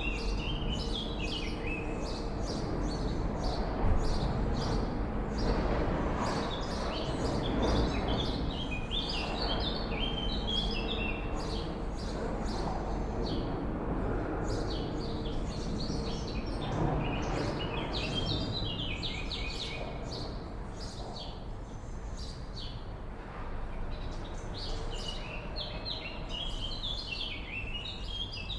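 Swallows twittering in several bouts of rapid high chirps with short gaps between them, over a steady low background rumble.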